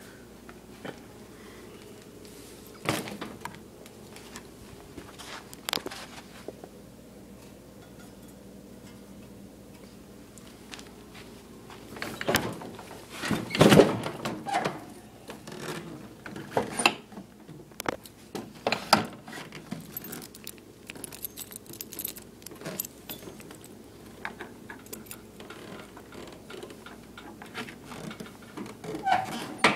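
Scattered clicks, knocks and rustling of hands working the controls of a John Deere LT155 lawn tractor with its engine off, busiest in the middle, over a faint steady hum.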